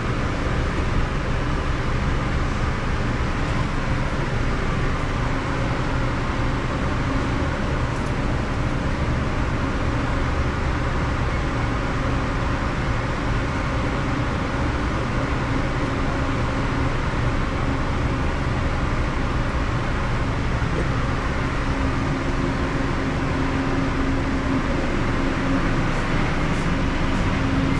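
Steady, loud mechanical hum and rushing noise of commercial kitchen equipment running, without a break.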